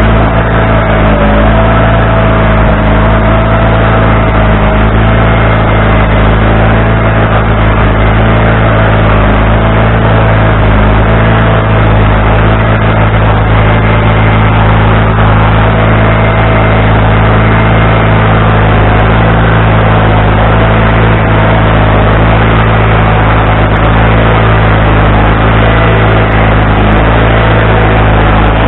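Wood-Mizer LT40HD portable band sawmill running steadily. The engine gives a constant low drone, with a slightly wavering whine above it.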